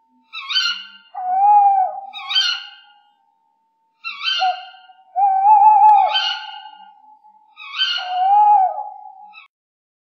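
Tawny owl calling. About six short, harsh calls are overlapped three times by longer, lower, wavering notes.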